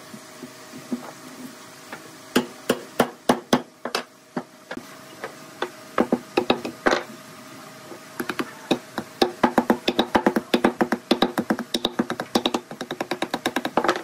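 Wooden mallet knocking a timber rail's tenons into the mortises of solid-wood bed legs: a handful of separate blows, then a fast run of knocks, about four or five a second, through the second half.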